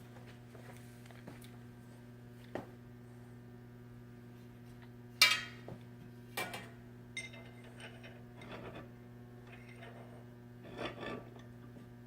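Metal tools and bicycle hub parts clinking and clanking on a workbench as the hub is handled and set in a vise, the loudest clank about five seconds in and one with a brief metallic ring shortly after; a steady low electrical hum underneath.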